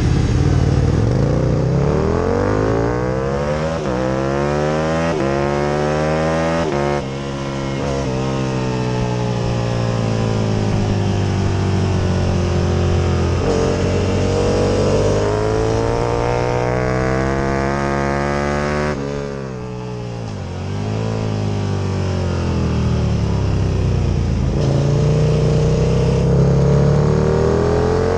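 First-generation Aprilia RSV Mille's V-twin engine being ridden hard, its pitch climbing through the gears with brief breaks at each upshift. About twenty seconds in the note falls sharply and the level dips as it shuts off and slows, then it climbs again under acceleration.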